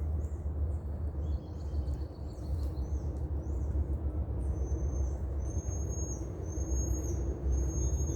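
Birds calling with high, thin, level whistled notes, a string of longer whistles in the second half, over a steady low rumble.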